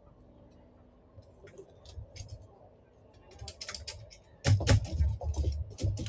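Metal clicks, clinks and rattles of a table fan's wire guard being handled and fitted. Light clicking starts about three seconds in, and louder clattering knocks follow from about four and a half seconds.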